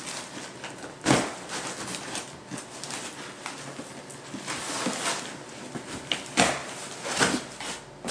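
A taped cardboard box being pulled open by hand: packing tape ripping and cardboard flaps scraping, with scratchy rustling and a few sharp rips, one about a second in and two near the end.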